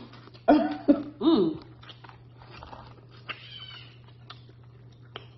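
Two short vocal sounds, cough-like, about half a second and a second in, then quiet eating noises: small clicks and handling of lobster shell and meat over a steady low hum.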